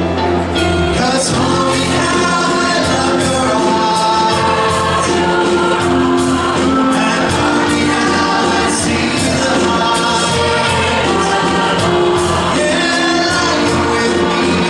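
Large mixed choir singing in full harmony behind a male lead singer on a microphone, over a steady beat.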